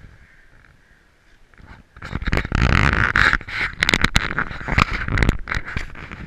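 Rubbing, rustling and knocking on a handheld action camera, starting about two seconds in after a quiet start.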